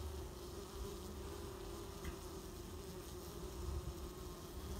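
Mandaçaia stingless bees (Melipona quadrifasciata) buzzing around the hive entrance, a steady low hum. The colony is stirred up by an intruder bee being fought and expelled at the entrance.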